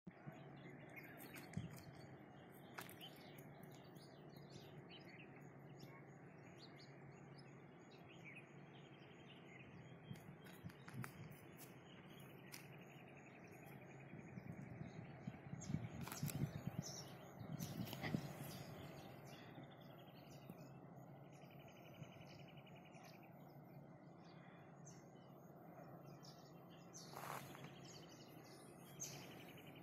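Faint birds chirping over a steady low background hum, with a few soft knocks and bumps around the middle.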